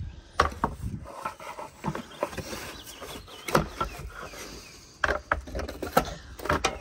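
Gutter-cleaning scoop on a long telescoping pole scraping and knocking along a rain gutter as it pushes out leaves and caterpillar droppings, with irregular sharp knocks.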